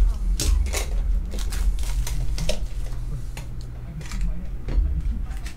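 Plastic shrink wrap being slit and peeled off a small metal trading-card tin, crinkling and tearing in quick, irregular crackles, with low handling bumps underneath.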